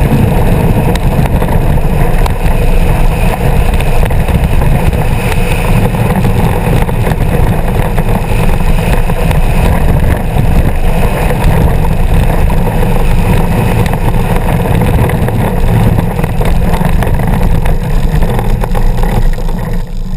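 Heavy wind buffeting on the onboard microphone of an engineless soapbox gravity racer running downhill at speed, mixed with the steady rumble of its wheels on asphalt.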